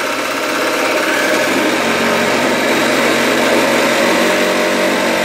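Motor of a classroom earthquake shake table running loud and steady at a high speed setting, shaking the table with a constant buzzing hum. It gets a little louder about a second in.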